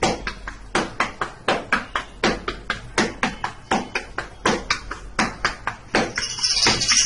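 A flat palm patting and pressing flour-dusted dough in a steel tray, a steady run of soft slaps about three a second. A brief hissing rustle about six seconds in.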